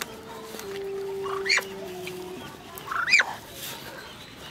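Newly hatched guinea fowl keets peeping: two sharp, short calls, each rising and falling, about a second and a half apart. A faint low steady hum lies beneath.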